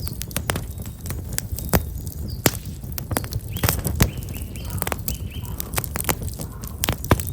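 Black locust firewood burning in an open bonfire, crackling with frequent irregular sharp pops and snaps over a low rumble of flame. A small bird chirps a few short notes about halfway through.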